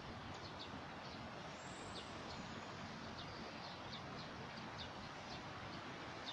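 Steady outdoor background noise with short high chirps of small birds calling several times a second.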